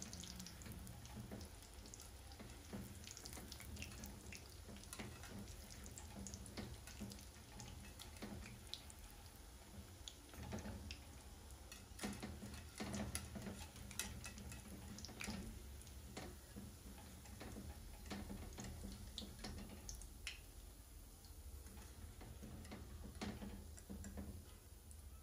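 Donuts deep-frying in hot oil: faint, irregular crackling and sizzling pops from the bubbling oil, thinning out near the end as the donuts are lifted out on a wire skimmer.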